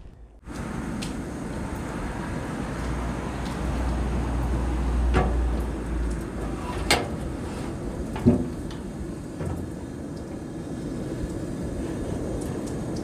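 Steady outdoor rushing noise with a low rumble swelling and fading in the middle, over which a stainless stockpot on a camp stove gives three sharp metal knocks as it is handled, the last the loudest.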